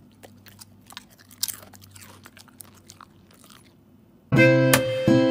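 A husky chewing a crunchy snack, with faint crisp crunches. About four seconds in, loud music with held notes comes in.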